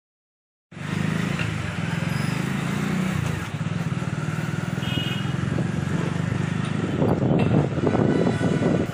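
Steady low rumble of a moving vehicle with wind on the microphone, starting abruptly about a second in, rougher and louder for a moment near the end.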